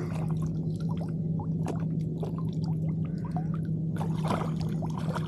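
Shallow water splashing and dripping in short, irregular bursts around an angler wading, over a steady low hum.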